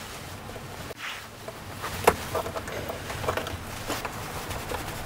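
Small clicks and taps of a screwdriver and a small pin being worked into a door's mortise lock, with one sharper click about two seconds in.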